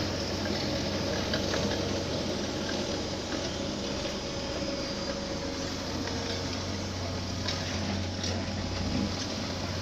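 Diesel engine of heavy construction machinery running with a steady low hum.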